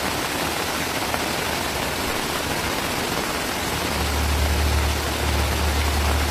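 Steady, even rush of heavy rain and fast-flowing floodwater. A deep low rumble joins about four seconds in.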